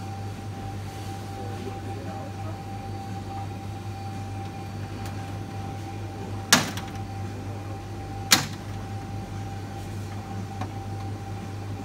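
Air conditioner running with a steady electrical hum and a faint steady tone. Two sharp clicks, a little under two seconds apart, come just past the middle.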